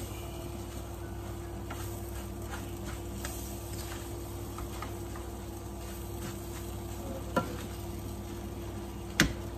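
Fried rice sizzling in a wok as a spatula stirs and tosses it, with light scraping clicks of the spatula on the pan. Two sharper knocks of the spatula against the wok come near the end, the second the loudest, over a steady low hum.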